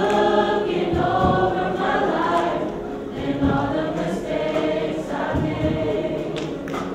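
A choir singing in gospel style, several voices holding and changing sung notes together, with occasional sharp beats underneath.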